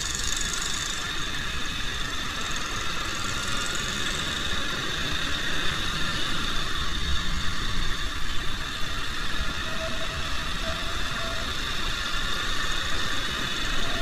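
Motorcycle engine running as the bike rides along, with a steady rumble of wind on the microphone.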